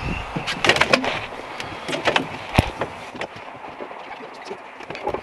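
Scattered knocks and clunks of someone climbing about on a pickup truck bed and metal loading ramp beside a snowmobile, with one heavier thump about two and a half seconds in.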